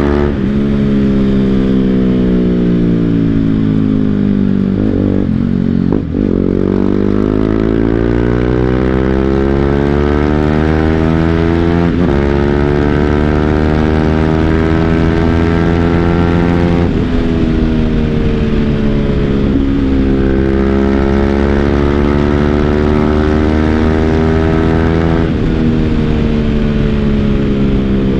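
BMW G 310 GS single-cylinder engine breathing through an Akrapovic full-system exhaust, pulling up through the gears. The pitch climbs and then drops sharply at each shift, about four times.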